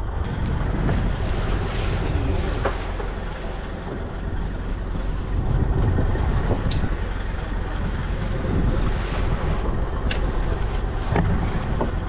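Steady low rumble of a fishing trawler's engine mixed with wind and sea noise while the net rope is hauled in, with a few sharp knocks in the second half.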